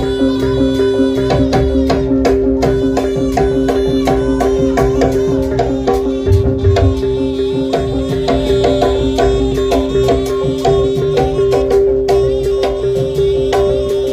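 Jaranan music played by a live ensemble: dense, fast drumming over two steady held tones.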